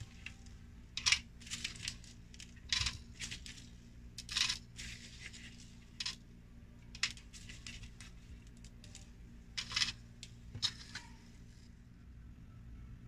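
Scattered short rustles and small ticks of hands peeling sugar-pearl-coated chocolate drops off waxed paper on a metal baking tray and setting them down on a plastic plate. The handling sounds stop about a second and a half before the end.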